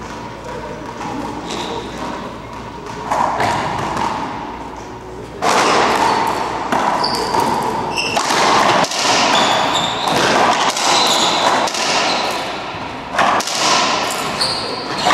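A racquetball rally starting about five seconds in: repeated sharp cracks of the ball off racquets and the court walls, echoing in the court, with short high squeaks of shoes on the hardwood floor.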